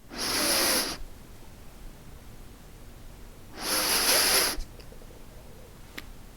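A person sniffing in sharply through the nose, twice, each sniff lasting just under a second, about three seconds apart.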